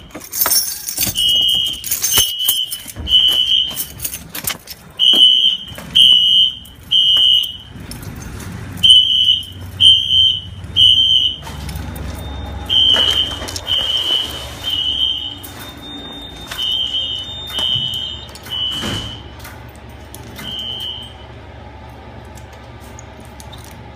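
Wheelock fire alarm horn-strobes sounding a high-pitched temporal-three evacuation pattern, three short beeps then a pause, over and over. The horns cut off about 21 seconds in, when the audible alarm is silenced at the panel. Knocks and handling clatter come through in the first few seconds.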